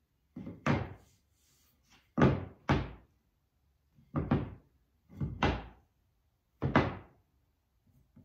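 Wooden boards knocked and set down on a wooden workbench: about eight short thunks, several coming in pairs.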